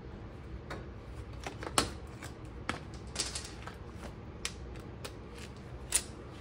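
Irregular metallic clicks and taps of hand tools and parts being handled on a car's rear suspension, about half a dozen in all, the sharpest about two seconds in and near the end, over a low steady hum.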